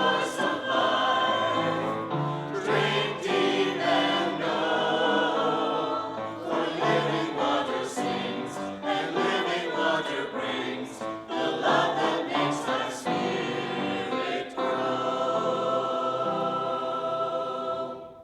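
Church choir singing an anthem, closing on a long held final chord that fades away at the very end.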